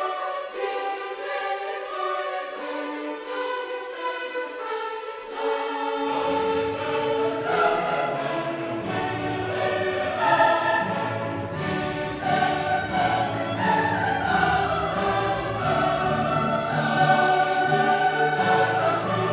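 Orchestral music with a choir singing. Deep low notes come in about six seconds in.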